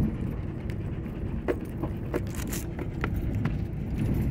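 Car driving, a steady low rumble of engine and road noise, with a few short clicks and knocks scattered through the middle.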